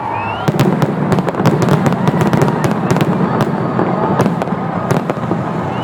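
Fireworks going off in rapid succession: many sharp cracks and bangs over a continuous rumble.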